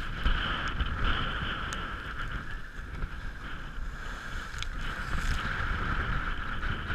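Rough sea rushing and breaking in a sailboat's wake, a steady hiss, with wind buffeting the microphone in a gusty low rumble.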